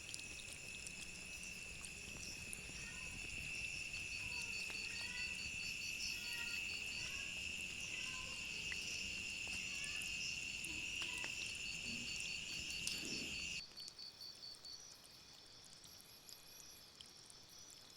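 Insects chirring: a steady high-pitched drone with a rapid pulsed chirp above it over a low background rumble. About thirteen and a half seconds in, the drone and rumble cut off abruptly, leaving fainter chirping.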